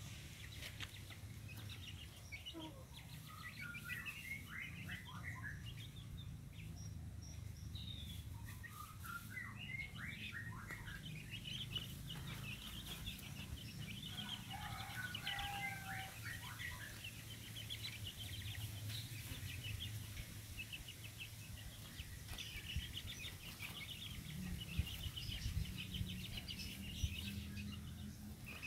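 Half-grown village chickens cheeping, with runs of short, high chirps over a steady low rumble.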